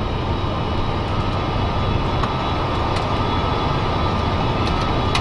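Boeing 747 cockpit noise on short final approach: a steady rush of airflow and engine noise, with a thin steady whine above it and a few faint clicks.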